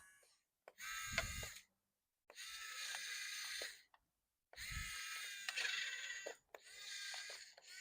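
Small electric motors and plastic gearboxes of radio-controlled toy construction vehicles whirring with a high whine, in four separate runs of one to two seconds each.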